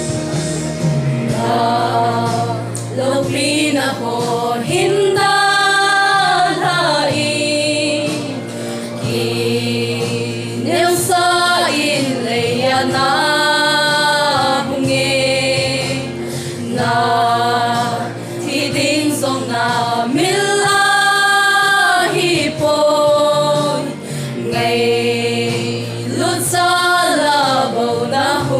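A group of women singing a gospel song together through microphones, in phrases a few seconds long with short breaks, over steady instrumental backing.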